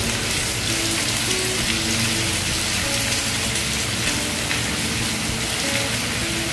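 Steady sizzle of chicken and diced carrots frying in a pan as cauliflower florets are added, under soft background music.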